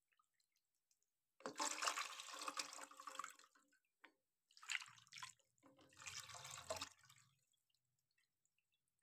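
Water poured from a bowl over raw chicken pieces on a plate, splashing and draining into a pan below as the chicken is rinsed. It comes in three pours: a long one starting about a second and a half in, then two shorter ones.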